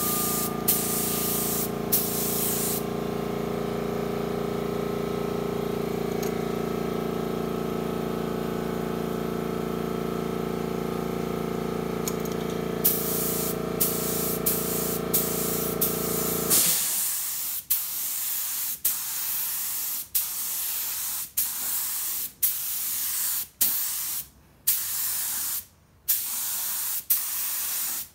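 Iwata LPH 80 spray gun hissing in short trigger-pulled bursts of air and paint, a few near the start, then about one a second from around 13 seconds in. Under it a small air compressor motor runs with a steady hum. The compressor cuts off about two-thirds of the way through, leaving only the spray gun's bursts.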